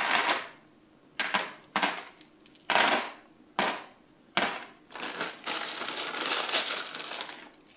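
Small decorative crystals for an electric fireplace's ember bed being dropped and spread by hand in its tray, clattering and rattling in about six short bursts, then a longer run of rattling from about halfway on.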